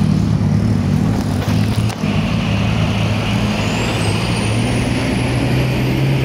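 Diesel engine of a loaded Hino truck running with a low, steady drone as it pulls slowly past close by. A thin high whine rises gradually in pitch over the second half.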